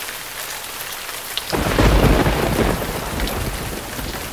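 Rain-and-thunder sound effect: a steady rain hiss, with a sudden thunderclap about a second and a half in that rumbles and fades over the next second and a half.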